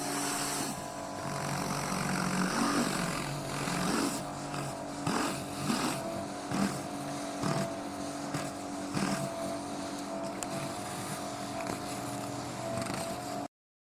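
Pressure washer running steadily, its engine holding one even note under the hiss of the water jet blasting the patio slabs, which swells and spikes irregularly as the spray moves. The sound cuts out briefly near the end.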